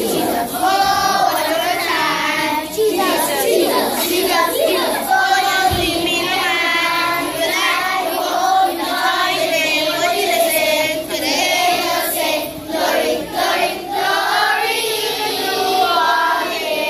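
A choir of young schoolchildren singing a Christmas carol together.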